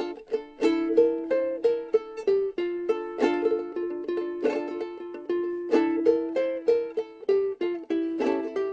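Background music: a plucked string instrument playing a quick melody of short, sharply struck notes.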